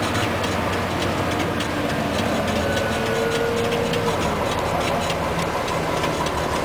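Fire rescue truck's engine and road noise heard from inside the cab while driving, a steady hum under an even hiss, with rain hitting the windshield.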